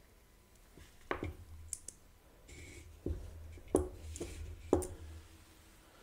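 Stripped metal parts of a P08 Luger pistol (bolt, firing pin and spring, magazine) being handled and set down: a handful of light clicks and metallic knocks, the loudest two about a second apart in the second half.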